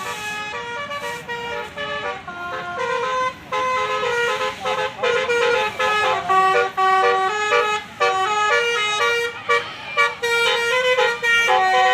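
Bus telolet horn, a multi-trumpet Basuri musical horn, playing a fast melody of stepped notes that change several times a second. It grows louder partway through and cuts off suddenly at the end.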